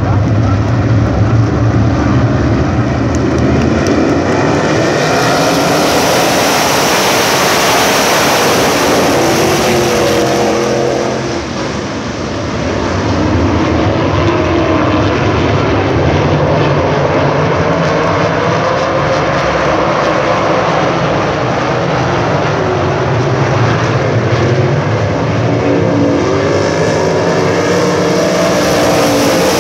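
A pack of USAC Silver Crown race cars running around a dirt oval, their engine notes rising and falling as the cars come past and pull away. It dips briefly about eleven seconds in, then swells again as the pack comes back around.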